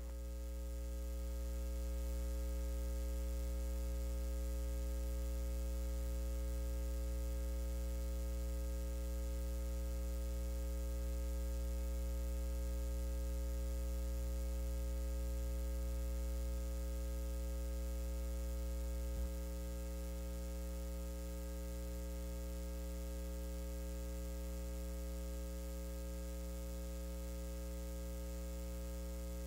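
Steady electrical mains hum with a ladder of steady overtones, with one brief click about two-thirds of the way through.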